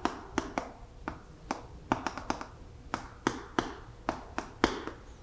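Chalk tapping and scraping on a blackboard while a small circle and lines are drawn: an irregular run of sharp clicks, about four a second.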